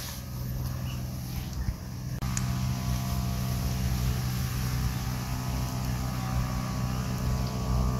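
A small engine running steadily with a constant low hum; its sound changes abruptly and gets a little louder about two seconds in.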